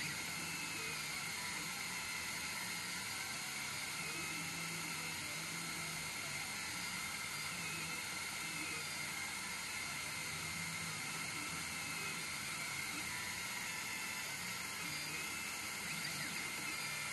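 CNC 1610 mini router's stepper motors whining as the laser head steps through an engraving. There is a steady hiss under it, and a low hum that comes and goes as the axes start and stop.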